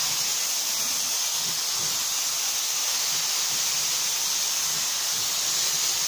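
Compressed-air gravity-feed spray gun spraying paint: a loud, steady, high hiss of air and atomised paint.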